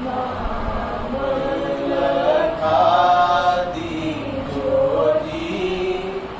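A group of people chanting a devotional prayer together in unison, with long held notes that rise and fall.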